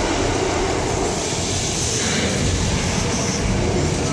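Loud, steady rumbling din from aboard a studio tour tram inside a 3-D projection attraction: the show's soundtrack mixed with the tram's rumble.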